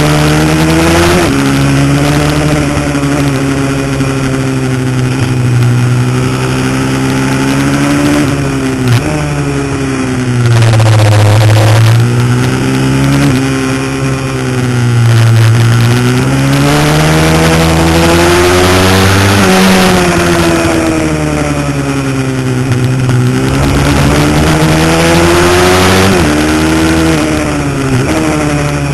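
Mini supermoto race bike's engine heard onboard at racing speed, its note repeatedly climbing under throttle and falling away when the rider brakes and shifts down for corners. Wind rushes steadily over the microphone.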